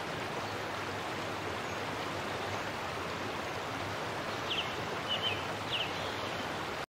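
Steady rushing of running water, with three short high chirps in the last two and a half seconds.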